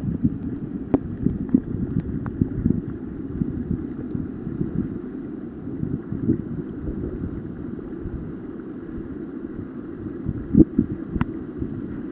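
Low, rumbling wind noise buffeting the microphone over the steady rush of river rapids, with a few brief knocks, the loudest near the end.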